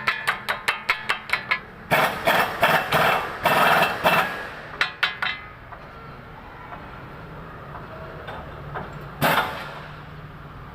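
Hammer striking metal front-suspension parts in quick, evenly spaced blows, about five a second, then a denser flurry of blows. After that, a low steady hum with one more strike near the end.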